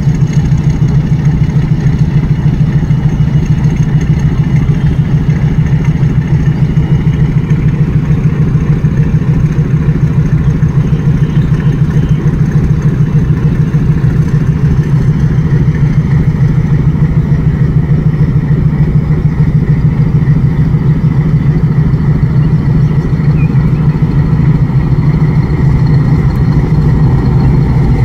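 Loud, steady idling of a meter-gauge diesel locomotive's engine standing close by, a deep throbbing rumble. A second diesel locomotive, a YDM4, is approaching on the adjacent track.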